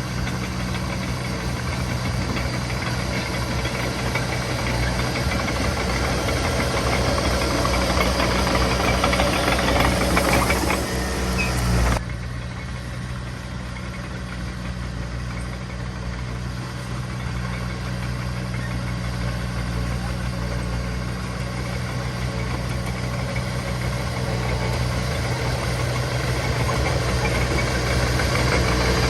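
Diesel engine of heavy earthmoving machinery running steadily, with a constant low drone and rattle. It grows louder toward about ten seconds in, drops off abruptly at about twelve seconds, then builds up again slowly.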